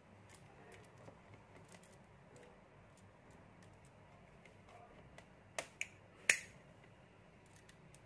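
Faint clicks and taps from handling a six-pin metal toggle switch and multimeter test probes against its pins, with three sharper clicks a little past halfway, the last the loudest.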